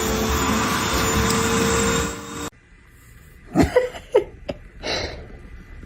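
A steady, loud motor-like running noise with a constant hum, cut off abruptly about two and a half seconds in. It is followed by a quieter stretch with a few short sounds, among them a sharp click and a brief hiss.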